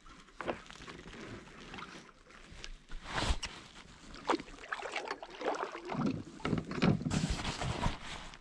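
Kayak paddling: the paddle blades dip and splash in the water, with scattered drips and knocks, busiest over the last few seconds.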